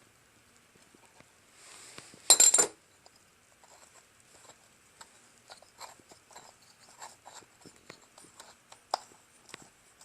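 Small metal tools and parts clicking and clinking during work on a small-engine carburetor as its float bowl is taken off, with one loud metallic rattle about two seconds in.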